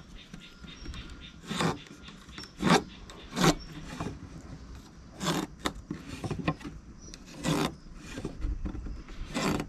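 Pencil scratching short marking lines onto a wooden board along a steel carpenter's square, about six quick strokes one to two seconds apart.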